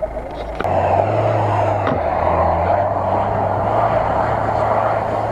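Off-road 4x4's engine running hard as it drives away over rough ground, a loud steady drone that starts abruptly about half a second in.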